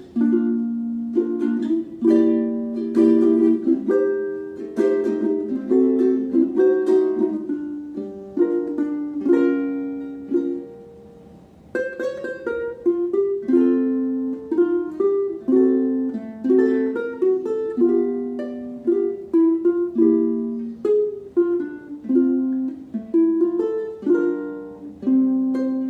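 Maestro Island Series UT-MR SB G ukulele played fingerstyle, plucked chords and melody notes. About ten seconds in, a chord is left ringing and fades away. The playing resumes about two seconds later.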